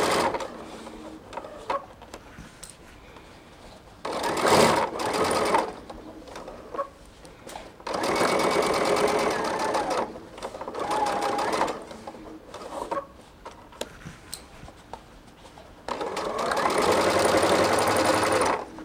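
Sewing machine topstitching a seam in several short runs, stopping and starting, with small clicks in the pauses between runs.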